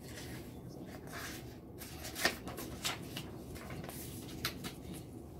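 Printed paper pages of a picture book being handled and turned by hand, rustling with several short crinkles, the sharpest a little over two seconds in.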